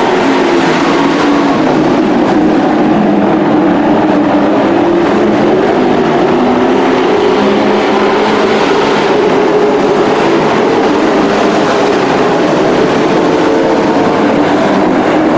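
A pack of dirt-track race trucks running at speed around the oval, several engines at once in a loud, steady drone whose pitches drift slowly up and down as they go through the turns and straights.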